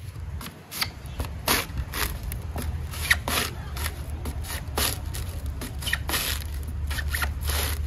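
Coconut husk being pried and torn off on an upright steel husking spike: a dozen or more short ripping, scraping sounds at irregular intervals as the fibrous husk splits away from the nut.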